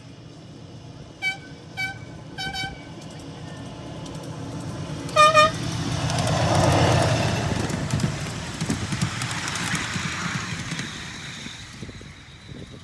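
Horn of a ride-on miniature railway locomotive giving three short toots, then one louder, slightly longer toot. The train then approaches and passes with a low rumble, its wheels clicking over the rail joints, growing loudest about seven seconds in and then fading.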